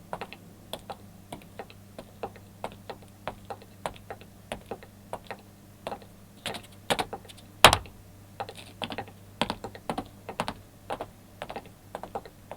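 A quick, uneven run of light taps and clicks, about three a second, with one much louder knock a little past the middle.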